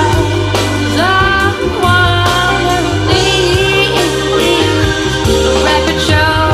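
Recorded music playing through Jamo S606 loudspeakers, with a steady bass line under a gliding lead melody.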